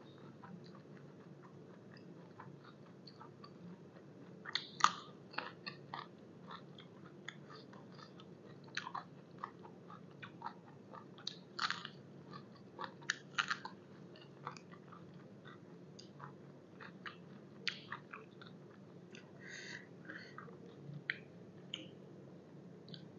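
A person chewing crisp raw vegetables close to the microphone: irregular crunches and wet mouth clicks over a low steady hum.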